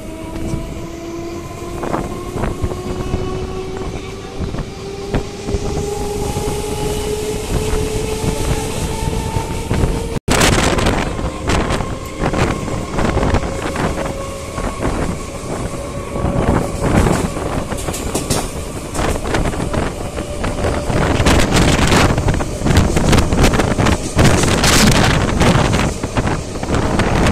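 Suburban electric local train pulling away and gathering speed, heard from inside at the open door. The traction motors' whine climbs steadily in pitch while the wheels clatter over rail joints and points, growing louder. Wind buffets the microphone near the end.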